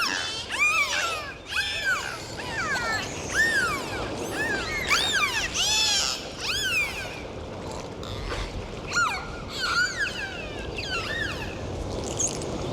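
Dolphins whistling: many short overlapping whistles, each rising and falling in pitch, with a few clicks mixed in. The whistles are dense at first and thin out after about seven seconds, fading out near the end over a steady hiss.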